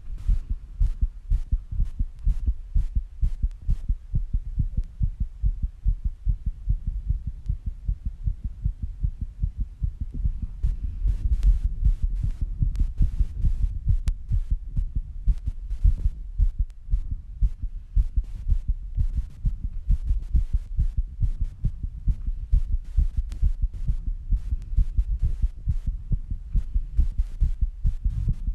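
A person's heartbeat racing after squats and rebreathing: a fast, steady run of low thuds.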